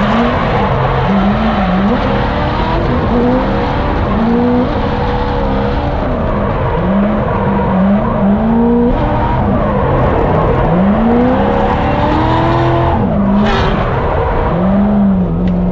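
Drift cars' engines revving up and down repeatedly through a drift, the pitch rising and falling every second or so over a steady hiss of tyres sliding.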